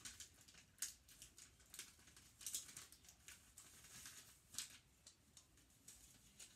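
Wrapping paper crinkling and rustling as it is folded around a small gift by hand, in faint, irregular short rustles.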